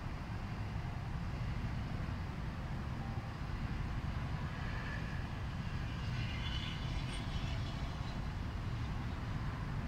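Steady low rumble of city street traffic, with cars and a scooter standing in a queue. A faint higher whine rises briefly about six to seven seconds in.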